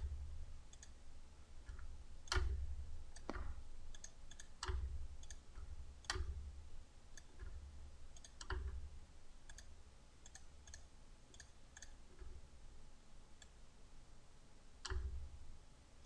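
Faint, irregular clicks of a computer mouse and keyboard, a second or more apart, several with a dull low thud under them. They thin out to a few faint ticks later on, then one louder click comes near the end.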